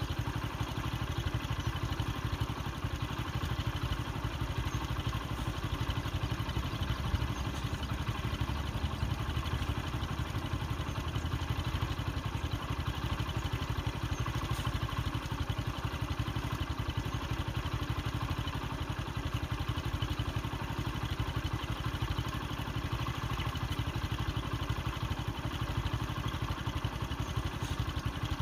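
A vehicle engine idling steadily, with no change in pace.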